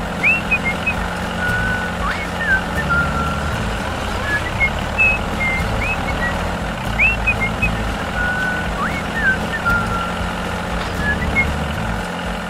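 A tractor engine running steadily with a low rumble, with short bird chirps scattered over it.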